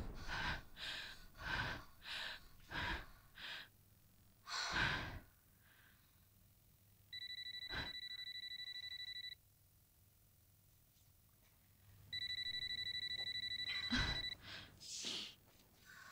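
Telephone ringing twice with an electronic trilling ring, each ring about two seconds long and a few seconds apart. Before the rings come a series of short breathy sounds.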